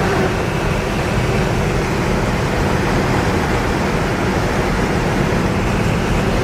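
A moving car's road noise: a steady rush of tyres and wind over a low rumble.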